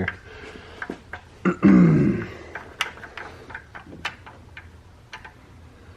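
Scattered light metal clicks and clinks as camshaft sprockets and timing chain are fitted onto an engine by hand. About a second and a half in, a man makes a short, low, falling vocal sound, the loudest thing heard.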